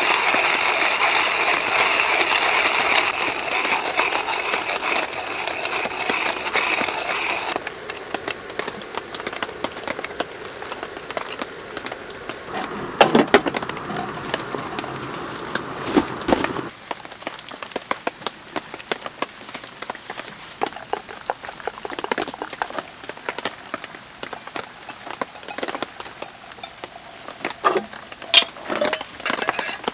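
Hand coffee grinder grinding beans, a steady crunching rasp that stops abruptly about seven and a half seconds in. Then come scattered light clicks and knocks as the grinder and a metal coffee dripper are handled, with two louder rattles near the middle.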